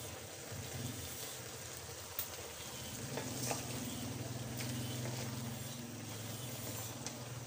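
A wooden spatula stirs crab, shrimp and vegetables cooking in coconut milk in an aluminum wok. The pot sizzles steadily, with a few short taps and scrapes of the spatula on the pan and a low hum underneath from about three seconds in.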